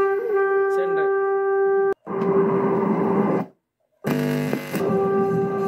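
Film soundtrack music with a held note, played through a small test amplifier's speaker from one channel of a Dolby/DTS mini decoder. It cuts out suddenly twice, once with a click, as the RCA plug is moved between the decoder's channel outputs.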